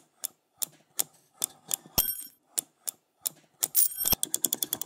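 Typewriter keys striking one at a time, about three a second. The bell dings about two seconds in and again near four seconds, each with a low thud. Near the end the keystrokes speed up into rapid typing.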